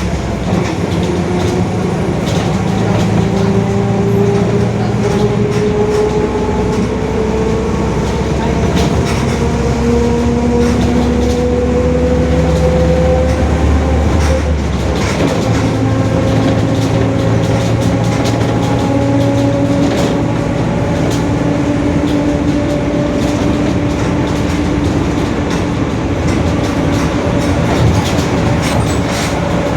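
Differential of a Mercedes-Benz OF-1721 city bus droning very loudly: a gear whine that rises slowly in pitch as the bus gathers speed, over the low drone of its diesel engine. The engine drone changes about halfway through.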